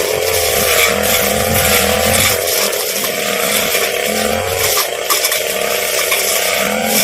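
Two-stroke brush cutter engine running at high revs, its pitch wavering slightly, over a scratchy hiss, with a few sharp clicks in the second half.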